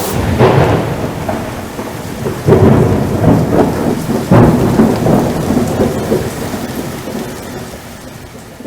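Thunderstorm: rolling thunder over steady rain, with loud claps about two and a half and four and a half seconds in, the rumble dying away near the end.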